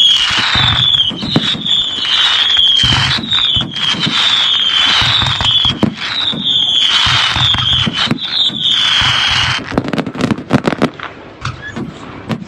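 Fireworks display: a rapid string of whistling fireworks, each high whistle about half a second long and falling slightly in pitch, over dense crackling and sharp bangs. The whistles stop about ten seconds in, leaving scattered bangs and crackles.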